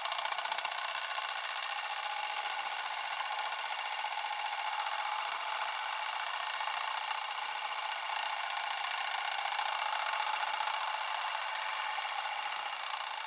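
Sound effect of a film projector running: a steady, fast mechanical whirr with no bass.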